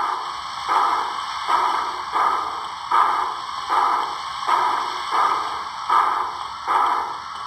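Broadway Limited Paragon 4 sound system in an HO-scale PRR E6 4-4-2 model steam locomotive playing steam exhaust chuffs at a slow, even beat, about one every three-quarters of a second, over a steady hiss. This is the locomotive's sound at the lowest throttle steps, crawling.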